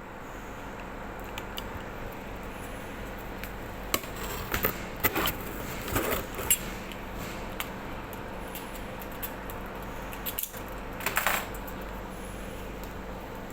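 Packaging and a product being handled by hand: scattered clicks, taps and brief rustles, bunched about four to six and a half seconds in and again about eleven seconds in, over a steady low hum.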